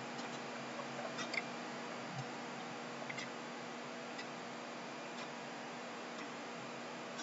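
Faint ticks about once a second over a steady low hum and hiss.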